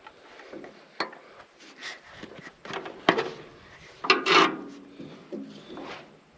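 Tools and metal parts being handled during hands-on engine work: a sharp knock about a second in, another about three seconds in, and a louder ringing clank about four seconds in, with rubbing and scraping between.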